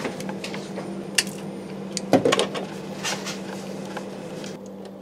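Scattered clicks and knocks of a screwdriver and hands working cable conductors into the terminals of an RCD enclosure, over a steady low hum.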